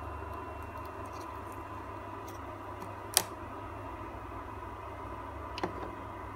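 Steady machine hum and hiss, with a sharp wooden click about three seconds in and a fainter one near the end as the cut wooden piece and its waste frame are handled.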